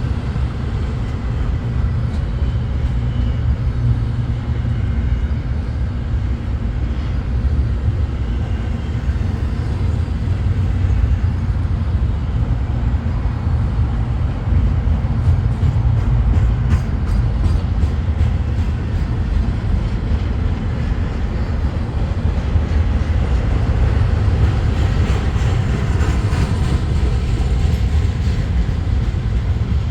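Freight train of intermodal cars rolling past at speed: a steady, heavy low rumble of steel wheels on the rails, with faint rapid clicks of the wheels over rail joints around the middle and again near the end.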